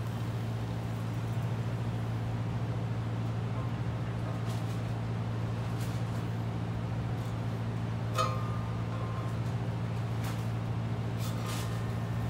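A steady low mechanical hum, with a couple of light metallic clicks about eight and eleven seconds in as the jaws of a digital caliper touch the steel hitch bracket.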